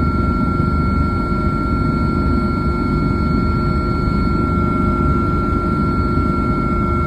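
Helicopter running steadily: a loud low rumble from the rotor and engine with a high, steady turbine whine over it.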